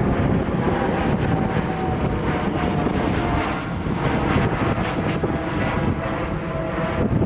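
Jet airliner engines at takeoff thrust: a loud, steady rush of jet noise with a faint whine that slides slightly down in pitch, twice.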